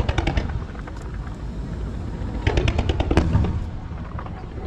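Fireworks going off: a rapid string of sharp bangs at the start, then another rapid string about two and a half seconds in, over a steady low rumble.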